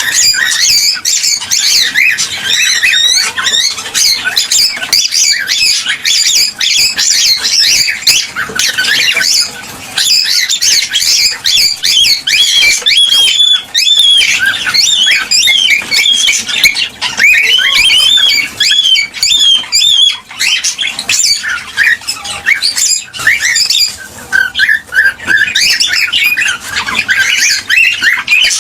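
Cockatiels chirping and squawking in a dense, continuous chorus of overlapping high calls: the excited breeding-season song of male cockatiels.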